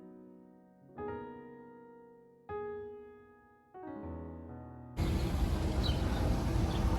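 Soft solo piano music, slow chords struck one at a time and left to fade. About five seconds in, it cuts off abruptly to a loud, steady outdoor roar.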